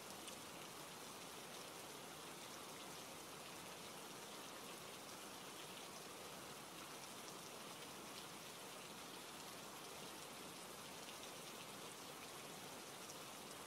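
Steady rain: an even, soft hiss with faint drop ticks scattered through it.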